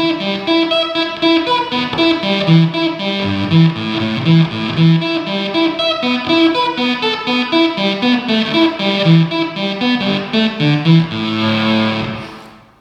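Electric guitar played through an Electro-Harmonix Mastotron fuzz pedal: a choppy funk-style riff of short, clipped notes. It ends on a held note that dies away near the end.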